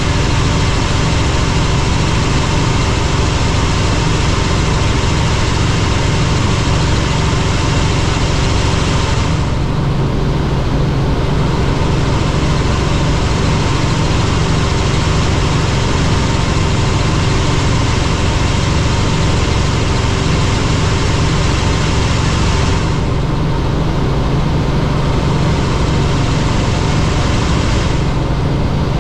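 Helicopter in flight: the loud, steady drone of its engine and rotor, with a strong low hum under an even hiss. The hiss thins briefly a few times.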